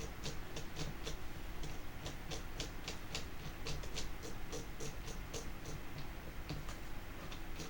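Light irregular clicks and taps of small plastic and metal parts being handled and fitted, about two to four a second, over a steady low hum.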